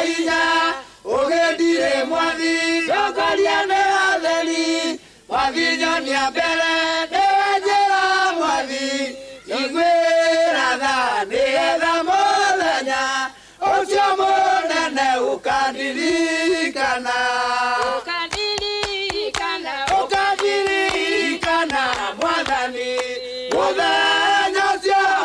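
Mixed choir of men's and women's voices singing a Kikuyu gospel song together, in phrases of about four seconds with short breaks between them.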